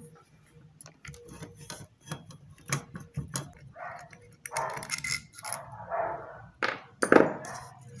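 Small metal parts and plastic being handled while a blender motor is taken apart by hand: scattered clicks and clinks of screws and the bracket, with some scraping and rustling in the middle and one louder sharp knock about seven seconds in.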